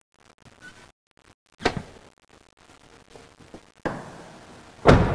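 Handling knocks: a sharp knock about a second and a half in, then a rattle that dies away and a heavy thump near the end.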